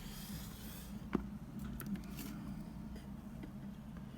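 Low steady hum with a few faint clicks and knocks, handling noise from a camera being fumbled after a drop.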